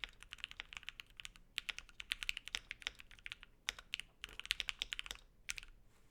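Typing on a Voice65 mechanical keyboard with JWK Dogikon linear switches, PE plate and foamed case: rapid runs of keystrokes broken by short pauses, stopping shortly before the end.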